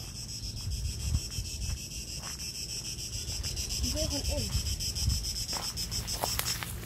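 Cicadas buzzing in a steady, high, fast-pulsing chorus that cuts off near the end, with wind rumbling on the microphone.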